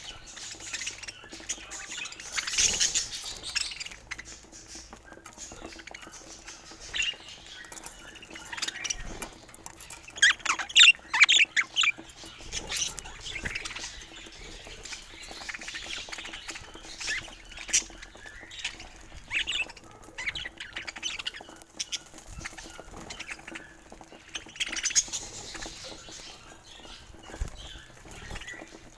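Budgerigars chirping and chattering in scattered short high calls, with a loudest burst of rapid chirps about ten seconds in, over a faint steady hum.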